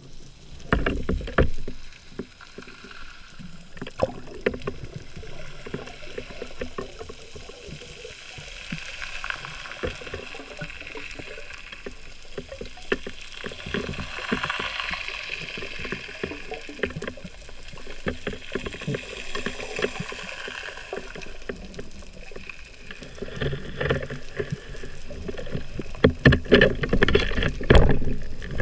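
Underwater sound from a camera in a waterproof housing: muffled water noise with scattered clicks and knocks. It grows into loud thuds and rumbles near the end as the diver's gloved hand grapples with an octopus on the sandy seabed.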